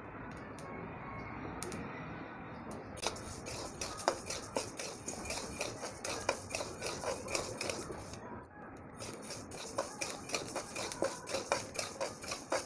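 Pearl millet grains being dry-roasted in a kadhai and stirred with a metal spatula: a soft steady hiss at first, then about three seconds in, quick scraping of the spatula and grains rattling across the pan. The stirring stops briefly about eight seconds in and then resumes.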